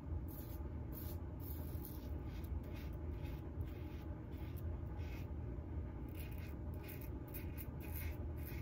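Double-edge safety razor (RazoRock Lupo .95) scraping through lathered stubble in short strokes, about two a second, over a steady low hum.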